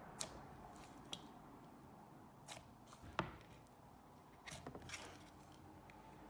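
Slime being pressed and stretched by hand, giving a few faint, scattered sticky clicks and pops, the sharpest a little after three seconds in.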